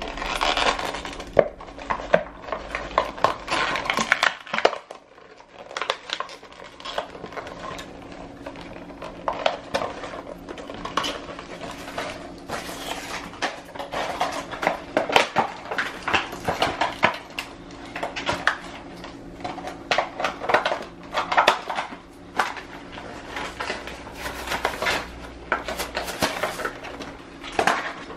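Cardboard box and clear plastic blister packaging of a toy being handled and picked at by a capuchin monkey trying to open it: irregular crinkling, crackling and tapping, with a brief lull about five seconds in.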